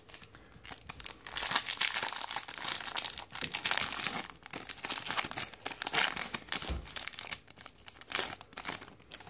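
Foil wrapper of a 2015 Topps Platinum trading-card pack being torn open and crinkled by hand: a dense, irregular run of crackling and tearing foil that starts about a second in and thins out near the end.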